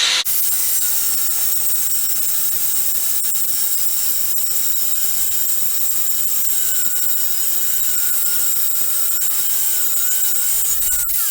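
A power tool's blade running steadily as it cuts into the case of a 100cc two-stroke bicycle engine.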